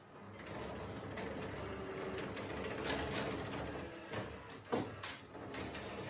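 FoldiMate laundry-folding machine running its folding cycle: a steady mechanical whirr, with a quick run of sharp clicks and clacks about four to five seconds in.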